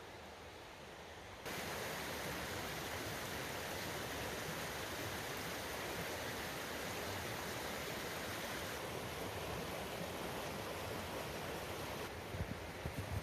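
Steady rush of water from Ocqueoc Falls, a small waterfall on a shallow river, starting abruptly about a second and a half in. Near the end the rush drops back and wind buffets the microphone in low thumps.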